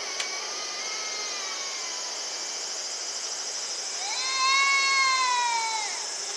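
An electric locomotive's whistle blown once for about two seconds, about four seconds in, its pitch rising as it sounds and sagging as it dies away, over a steady high insect buzz.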